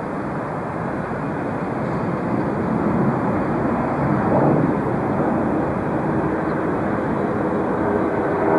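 The four jet engines of a taxiing Boeing 747-300 running at low taxi power, a steady even noise.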